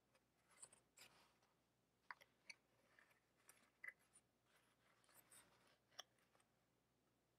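Faint rustling and crinkling of a paper plate and yarn being handled as the yarn is woven over and under the plate's cut spokes, with a few sharp ticks.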